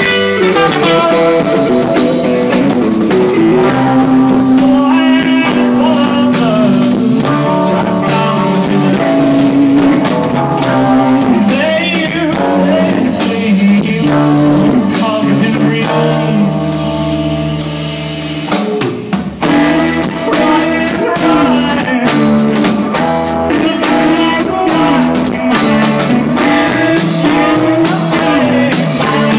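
Rock band playing live: electric guitars playing melodic lines over a drum kit. About sixteen seconds in, the band holds one sustained chord for a few seconds, then the drums come back in.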